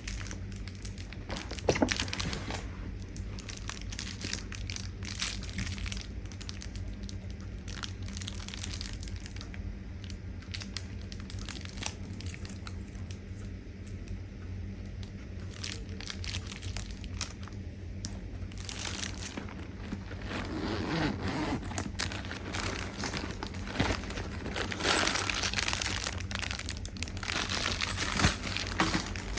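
Shopping-bag packaging rustling and crinkling in bursts as items are unpacked, busiest near the end, over a low steady hum.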